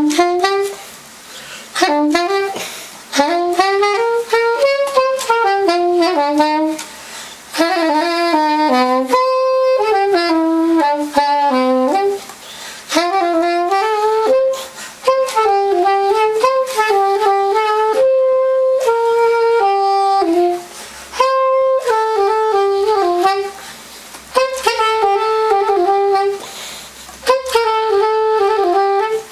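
Soprano saxophone playing a melody in phrases of a few seconds, with short breaks between phrases.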